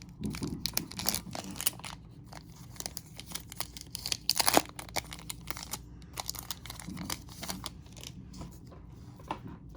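Foil wrapper of a 1999 Topps Opening Day baseball card pack crinkling and tearing as the pack is opened and handled. There are irregular crackles throughout, the loudest about four and a half seconds in.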